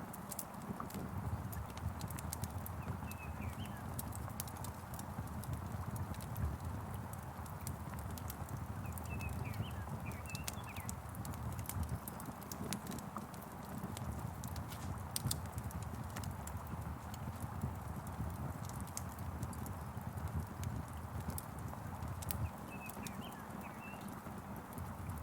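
Wood fire crackling, with frequent sharp pops and snaps over a steady low rumble. Short bird chirps come in three times: a few seconds in, around the middle, and near the end.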